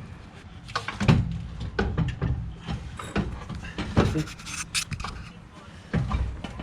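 Floor jack being pumped to lift a transmission into place, with a run of irregular metallic clicks and clunks; the loudest knocks come about a second in and about four seconds in.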